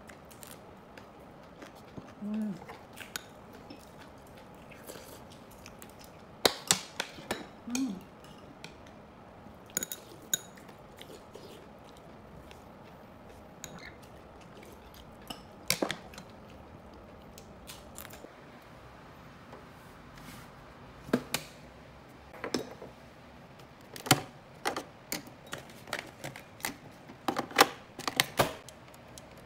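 Metal chopsticks and a spoon clinking and scraping against a ceramic bowl while eating, in scattered, irregular taps with quiet gaps between them.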